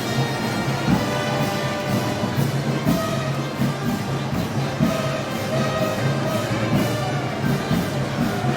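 Wind band playing Moros y Cristianos festival music: held brass notes over a steady, regular drum beat, with a heavy stroke about every two seconds.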